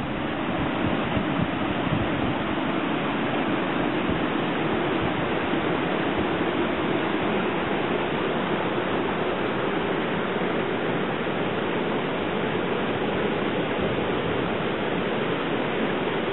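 Swollen creek in flood, brown floodwater rushing and churning white over rocks in a steady, even rush of white water.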